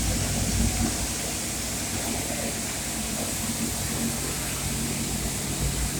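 Steady machine hum with a low drone and an even hiss, unchanging throughout.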